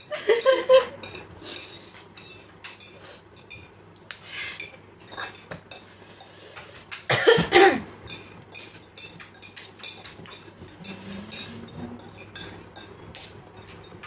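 Cutlery clinking and scraping against a dish while eating, in scattered clicks, with a short vocal sound right at the start and another about seven seconds in.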